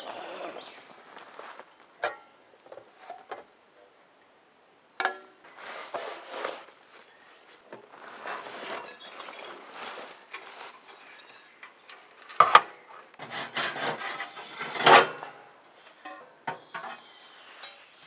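Folding stainless-steel wood stove being unpacked and assembled by hand: intermittent metallic clanks, taps and rattles with rustling, the sharpest clanks coming in the second half.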